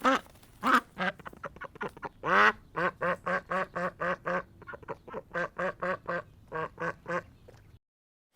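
Poultry calling: a fast run of short, repeated calls, about four a second, that breaks off shortly before the end.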